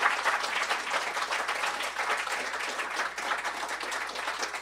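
An audience applauding, many hands clapping at once in a dense, even patter.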